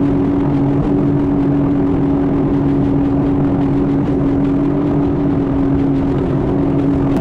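2020 Sea-Doo FishPro personal watercraft running under way at a steady throttle. Its engine holds one steady pitch over the rush of wind and water.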